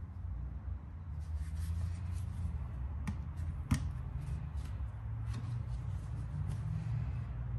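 Light scattered clicks and scrapes, with two sharper knocks about three and a half seconds in, over a low steady rumble.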